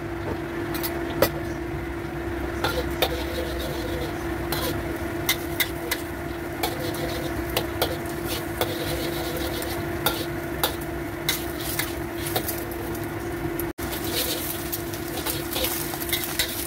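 Beaten eggs sizzling in hot oil in a steel wok, with a metal spatula scraping and clicking against the wok as the egg is scrambled, over a steady hum.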